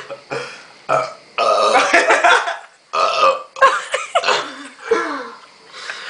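A person burping deliberately: a string of loud burps, the longest drawn out for about a second and a half.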